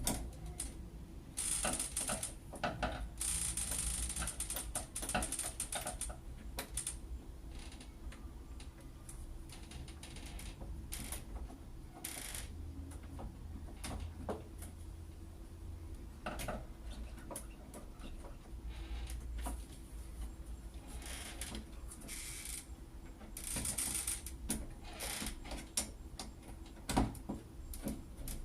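Irregular metallic clicks, rattles and short scrapes of a door lock being unscrewed and taken apart by hand, with screws and lock parts being handled.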